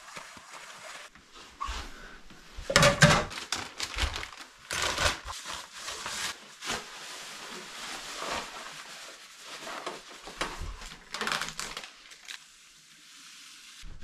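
Rustling, crinkling and knocking of camping gear being handled and packed, in irregular bursts.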